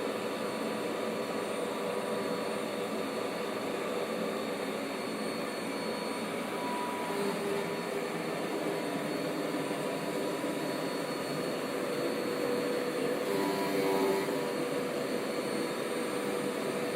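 Hoover upright vacuum cleaner running with a steady motor noise, getting slightly louder about thirteen seconds in.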